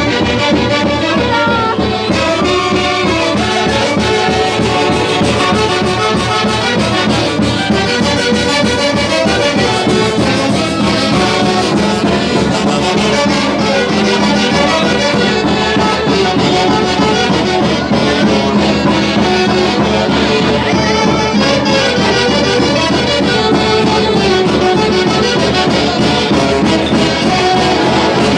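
Peruvian folk orchestra (orquesta típica) playing a Santiago tune, with horns carrying the melody over a steady dance beat.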